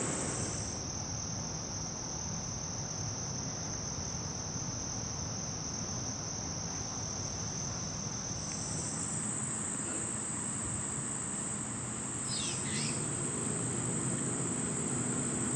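Singing insects: a steady, unbroken high-pitched trill that jumps to a higher pitch about nine seconds in. A low background rumble runs underneath, and a brief descending chirp comes near the end.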